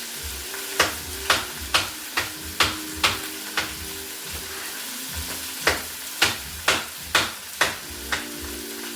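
Chicken thighs sizzling steadily in a frying pan, with two runs of sharp knocks at about two a second.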